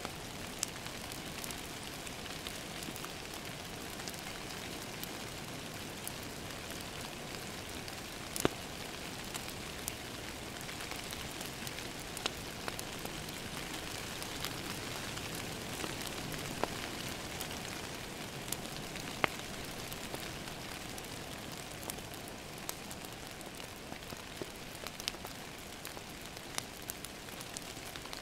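Steady rain pattering on a window mixed with a wood fire crackling, its sharp pops scattered irregularly throughout; the loudest pops come about eight seconds in and again near twenty seconds.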